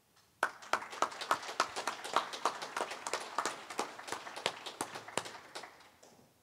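Small audience applauding: a few people clapping, with one set of claps standing out at about three a second. The applause starts about half a second in and dies away near the end.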